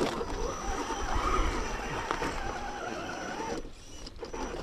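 Electric motor and gear drive of a 1/10-scale RC rock crawler whining as it climbs a rock face. The pitch wavers, and the whine cuts out about three and a half seconds in.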